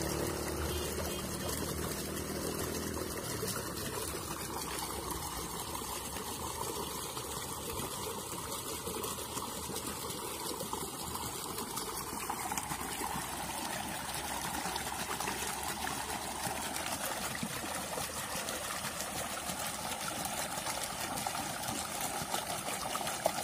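Steady trickle of running water, with a single sharp click near the end.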